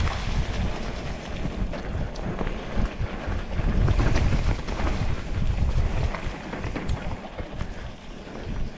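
Wind buffeting the microphone of a mountain bike riding fast down a dirt trail, with tyre noise and scattered clicks and rattles from the bike over rough ground.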